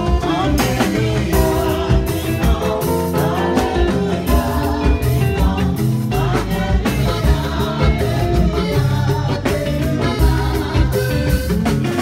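Live church choir singing into microphones over amplified instruments, with a steady beat.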